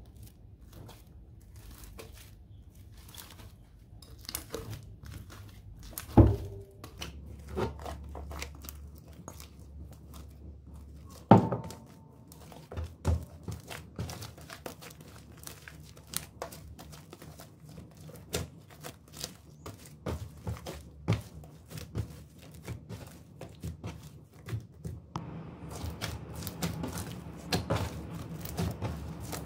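Fluffy slime being squeezed, stretched and kneaded by hand: a steady run of small sticky crackles and pops, with two heavy thunks about six and eleven seconds in.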